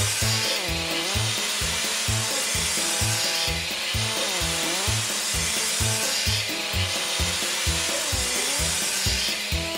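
Cartoon machine sound effect: a steady buzzing hiss with a wavering whine that swells about every three seconds, over background music with a regular bass beat. It cuts off near the end.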